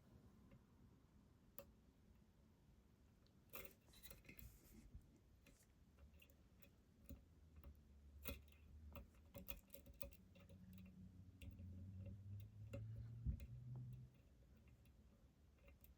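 Faint, irregular small metallic clicks and taps of a pick and tension tool working the pins inside a Yale 500 padlock. A soft low hum rises for a few seconds near the end.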